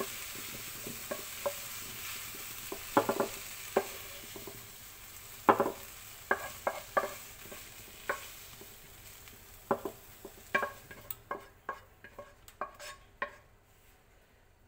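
Scattered clicks and taps of a utensil against cookware as pieces of roasted pineapple are moved into a baking dish, over a soft sizzling hiss from the hot fruit that fades and stops about eleven seconds in.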